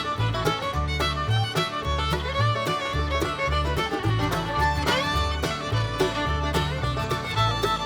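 Background music: an upbeat fiddle-led country or bluegrass tune with a steady beat.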